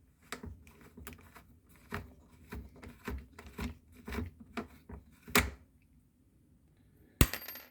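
Irregular clicks, taps and knocks of plastic parts and screws being handled at a dishwasher's control board, then a single sharp click near the end.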